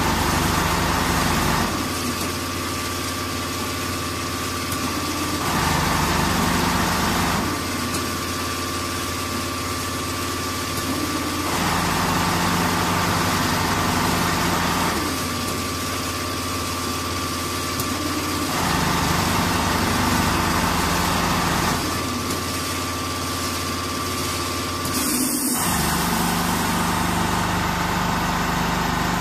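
Richpeace four-head CNC sewing machine running as it stitches quilting through fibre-filled jacket panels. A steady mechanical running sound that shifts between a louder and a quieter phase every two to four seconds, with a short break about 25 seconds in.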